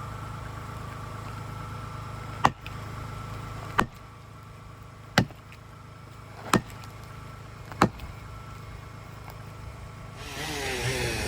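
Five sharp knocks, about a second and a quarter apart, over a steady low engine hum; near the end a louder, rougher engine noise comes in.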